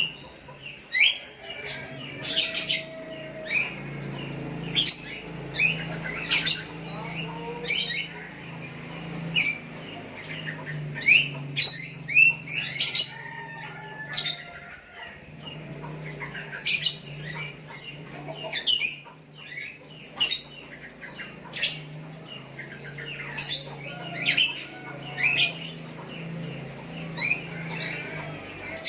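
Sooty-headed bulbuls calling back and forth: a continual run of short, sharp chirping notes, one or two a second, over a steady low hum.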